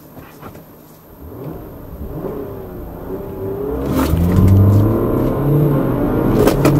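Car engine accelerating hard from a standstill, heard from inside the cabin, getting steadily louder with rising pitch, with two short knocks about four and six and a half seconds in.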